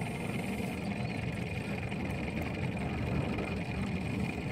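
A small 9.9 hp outboard motor idling, a steady low rumble with a faint thin whine.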